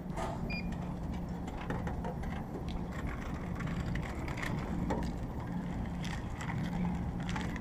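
A packaged meal is pulled out through a vending machine's round, flap-covered dispensing port: scattered clicks of the flap and rustling of the plastic pack, over a steady low hum. A short electronic beep sounds about half a second in.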